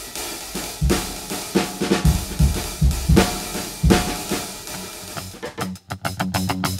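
Background music: a drum-kit intro with heavy bass-drum and snare hits, giving way about five and a half seconds in to a fast, even rhythmic pattern.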